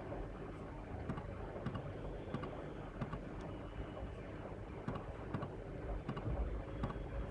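Scattered faint computer mouse clicks and keyboard taps over a steady low background hum.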